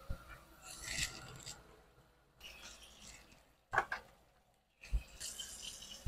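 Raw shrimp being handled and set down on a steel baking pan: rustling with light clinks and a couple of sharp taps, the louder ones a little before and after the middle.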